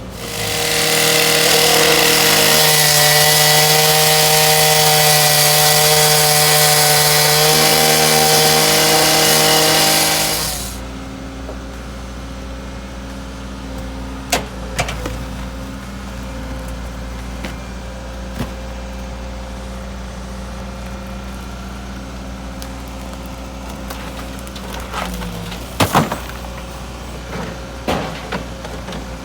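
A power saw cutting loudly for about ten seconds, then stopping, leaving a steady engine running with a few sharp knocks.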